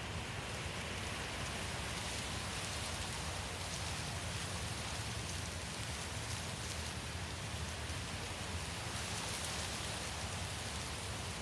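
Steady wind ambience: an even hiss over a low rumble, with no gusts or breaks.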